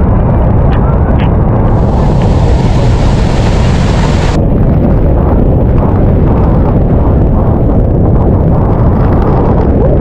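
Roar of Victoria Falls at peak flow: a loud, steady, deep rush of massive falling water, with a stretch of brighter hiss from about two to four seconds in.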